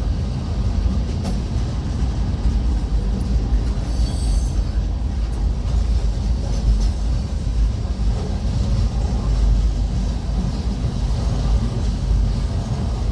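Long freight train's cars rolling past a grade crossing: a steady, loud rumble of wheels on rails.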